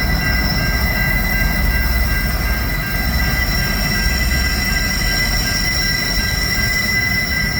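Heavy grain freight train passing, hauled by diesel locomotives: a deep, steady rumble with high-pitched wheel squeal held throughout.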